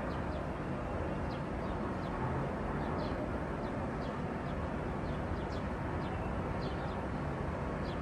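Outdoor city ambience: a steady rumble of traffic with short, high chirps of small birds, two or three a second.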